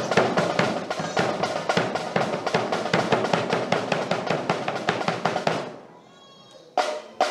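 Drum music: a fast, dense snare and bass drum beat that breaks off a little under six seconds in, followed after a short lull by two sharp knocks.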